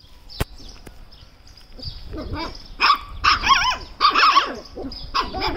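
Puppies yelping and barking in a string of short, high, wavering bursts from about two seconds in. A sharp click sounds near the start.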